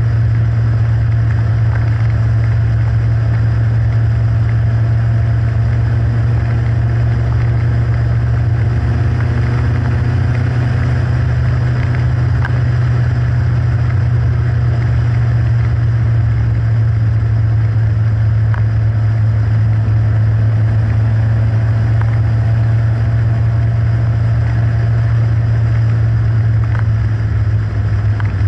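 Westfield sports car's 1.8-litre Ford Zetec four-cylinder engine running under load at a steady cruise: a constant low engine drone. The pitch sags slightly over time, with a brief dip in loudness near the end.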